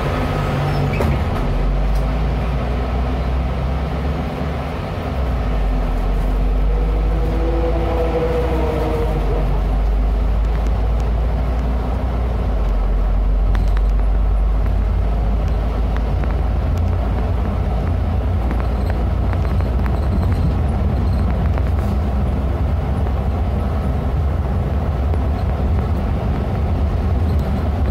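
Cabin noise inside a Neobus Mega BRT bus under way: a steady low engine drone and road rumble.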